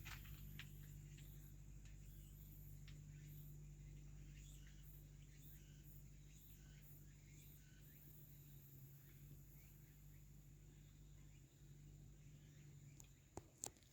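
Near silence: a faint steady low hum with a few soft clicks, two slightly sharper ones near the end.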